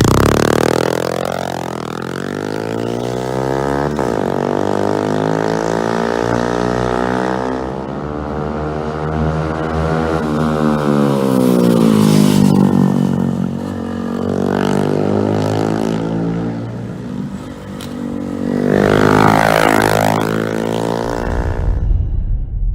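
Honda Monkey 125's single-cylinder four-stroke engine being revved through its exhaust, the pitch climbing and falling several times as the throttle is blipped. The engine sound stops near the end, leaving a low rumble.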